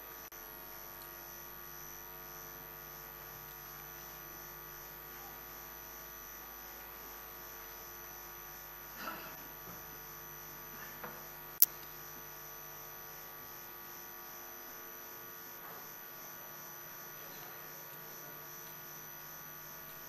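Steady electrical mains hum, a drone of several steady tones, with one sharp click a little past the middle.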